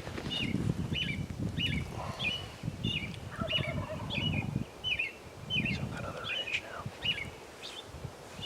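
A bird repeating a short, high, falling chirp about twice a second, over low crunching footsteps in the woods.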